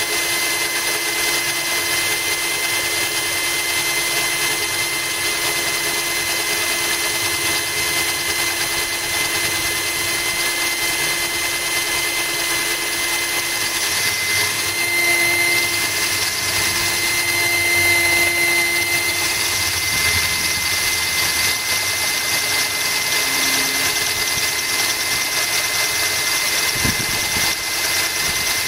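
Cordless drill running steadily, its bit grinding into glass kept wet by a trickle of water from a hose.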